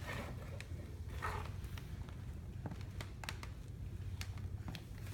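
Faint scattered clicks and soft rustles of a baby handling a power cable and its plug or switch, over a low steady hum.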